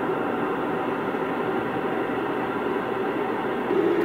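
Steady rushing noise of an airliner cockpit in flight, played back through a screen's speaker and re-recorded, so it sounds thin and muffled.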